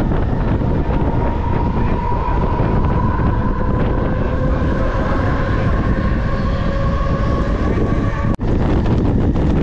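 Electric suburban local train pulling out of a station, heard from its open doorway: its traction motors whine, the whine rising slowly in pitch as the train gathers speed, over a steady rumble of wheels and rushing air on the microphone. The sound breaks off for an instant about eight seconds in.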